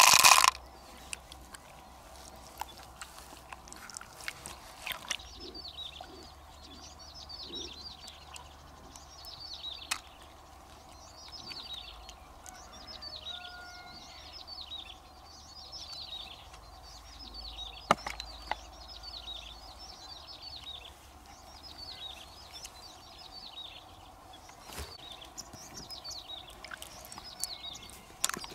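A brief clatter at the very start, pearls dropped into a small glass jar. Then a bird sings a short phrase of high, falling notes over and over, about once every second and a half.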